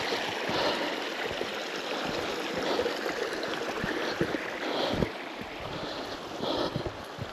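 Moorland stream running steadily, with a few dull low knocks through it.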